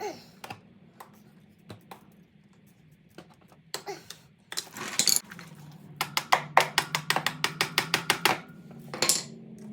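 Metal hand tools clicking and clinking against a rusty motorcycle drive chain as it is worked loose, with scattered knocks at first and a fast run of clicks, several a second, past the middle.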